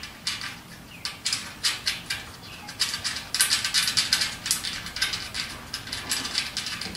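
Small metal clicks and clinks, irregular and coming thick and fast around the middle, as a nut is threaded by hand onto a bolt through a steel roof-rack bracket.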